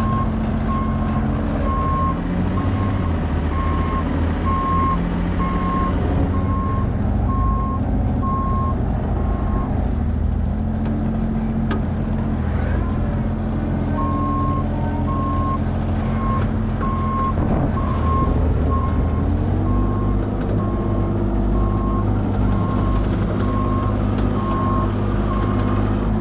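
A backup alarm beeping in a steady series over a diesel engine running. The beeping pauses for a few seconds about a third of the way in, then resumes, and the engine note rises a little about two-thirds through.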